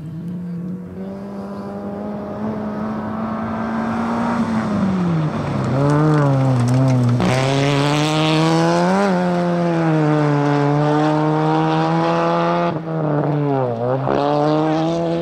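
Rally car engine at full throttle on a gravel stage, its pitch climbing for about four seconds, dipping briefly around five seconds and again near the end as the driver lifts or shifts, and held high and loud in between. A short burst of hiss comes about seven seconds in.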